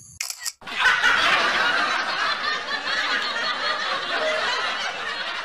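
Canned audience laughter: a laugh track of many people laughing together. It comes in after a brief sound about half a second in and carries on steadily.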